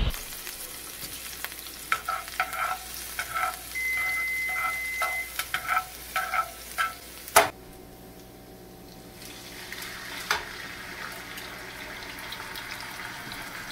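Minced garlic sizzling in hot oil in a nonstick frying pan while it is stirred with metal tongs. A sharp clack comes about seven seconds in, and the sizzle builds again toward the end as chicken thighs go into the pan.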